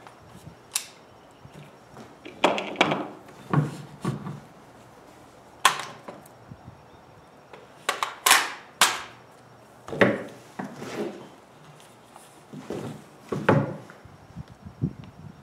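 Irregular knocks and clatter, a dozen or so separate sharp hits of hard objects, some in quick pairs and a few with a short ring.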